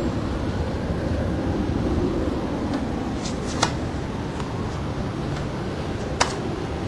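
Tennis ball struck by rackets during a rally: two sharp pocks about two and a half seconds apart, with a couple of fainter ticks, over a steady low rumble.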